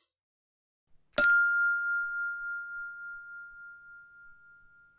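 A single bell ding about a second in: one clear, high ring that fades away over about three seconds with a slight pulsing as it dies.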